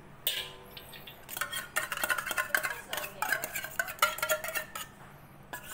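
Metal spoon scraping and clinking inside a small metal tin of ghee, a quick run of short scrapes and clicks as the last of the ghee is dug out.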